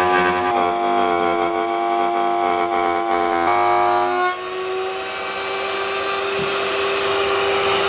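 Router in a homemade router table running with a steady high whine as a T-slot cutter mills a groove in a beech board; about four seconds in its pitch steps up slightly and the sound thins as the load eases.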